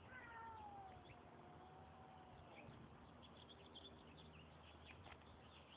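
Near silence, with faint bird chirps and one long, faint call that falls in pitch and then holds steady.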